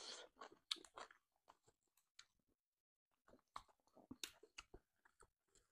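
Close-miked chewing and lip-smacking of people eating beef curry and rice by hand: quiet wet clicks and smacks, with a pause of about a second in the middle.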